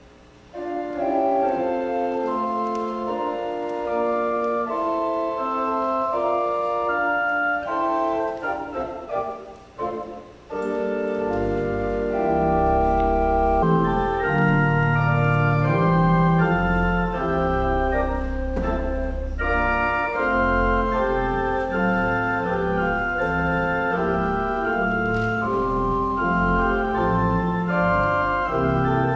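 Organ playing a slow offertory piece in held chords; about eleven seconds in, deep pedal bass notes join under the chords.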